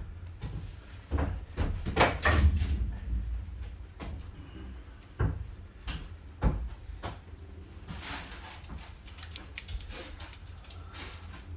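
Scattered knocks and clunks of hands working on parts, a cluster of them early on and a few single knocks later, over a low rumble.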